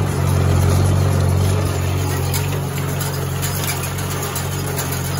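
Farmall H tractor's four-cylinder engine running steadily under load as it pulls a hay rake, a deep even hum that eases slightly about two seconds in.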